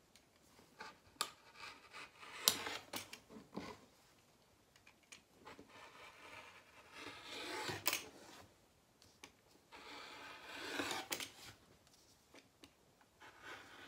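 Fabric being cut through with a hand-held blade, in about four spells of scraping cutting with small clicks between them. The blade is dull enough that the sewer takes it as the sign that a new one is needed.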